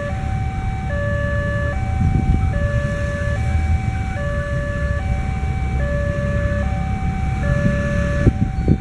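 Railway level-crossing warning alarm sounding, an electronic two-tone signal that switches between a lower and a higher tone a little more than once a second, warning of an approaching train. A steady low rumble runs beneath it, and a couple of sharp knocks come near the end.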